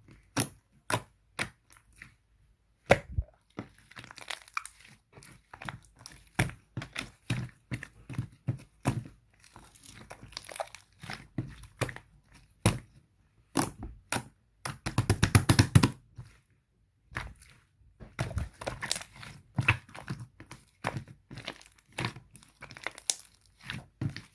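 Slime being squished and pressed by hand, giving a run of sharp crackling clicks and pops from trapped air, with a dense, loud stretch of crackling about fifteen seconds in.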